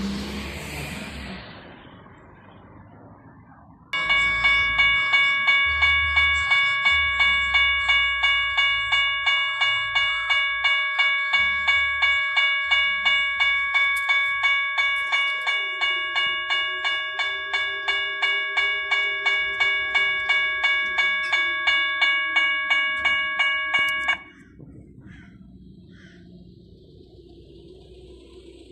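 Railway level-crossing warning bell ringing rapidly, about three strikes a second, signalling an approaching train. It starts abruptly about four seconds in and cuts off about twenty seconds later.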